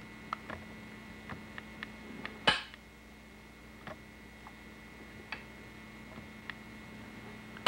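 Ratchet lock mechanism of a manual screen printer worked by hand: scattered light metallic clicks, with one sharper clack about two and a half seconds in and another at the very end.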